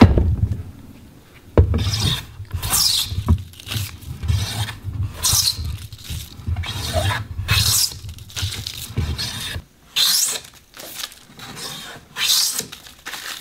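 Hand plane shaving a block of wood in repeated scraping strokes a second or two apart, each a short hissing rasp, as the wood is taken down in thickness.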